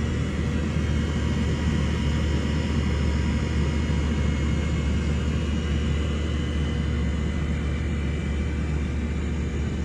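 GMC Savana box truck's engine idling steadily, heard from the open engine bay: a constant low hum with faint steady whines above it.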